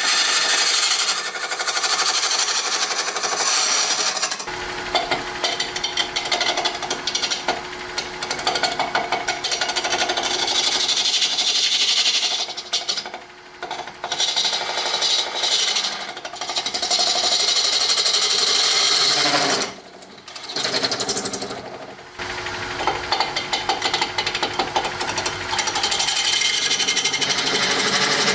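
Lathe turning tool cutting a spinning alumilite resin and burl wood orb: a harsh scrape with a fast rattle in it, dropping away briefly three times.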